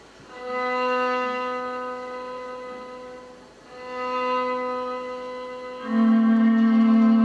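Dance-performance music: slow, long-held bowed-string notes swelling in three phrases, the last the loudest.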